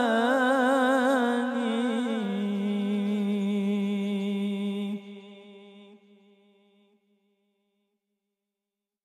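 A male voice sings unaccompanied, holding the last word of an Arabic devotional line ('makān') with a wide, wavering vibrato. About two seconds in it drops to a lower steady note, breaks off about five seconds in, and fades away, leaving silence.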